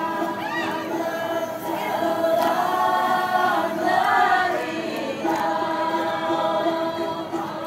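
Group of women singing a Dayak Kenyah datun, a traditional communal song, together as a choir in long held notes, the pitch rising and falling midway.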